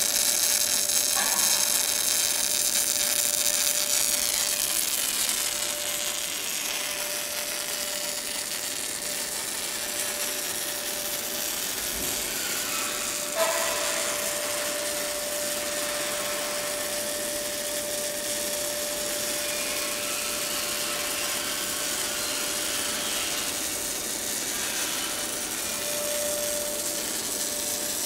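MIG/MAG welding arc on steel, running with a steady buzzing crackle, over a faint steady tone. There is a short click about halfway through.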